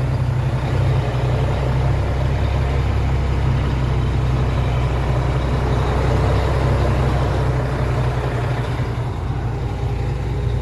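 Volvo NH 380 truck's diesel engine running steadily as the truck drives slowly through town, a deep even drone heard from the cab.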